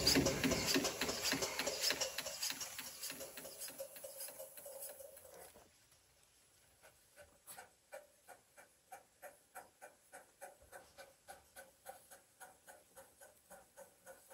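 Darjeeling Himalayan Railway B-class saddle-tank steam locomotive No. 19B pulling away with quick, even exhaust beats that fade as it moves off. After a short near-quiet gap about six seconds in, its exhaust beats come back faint and distant, about three a second, as it works its train.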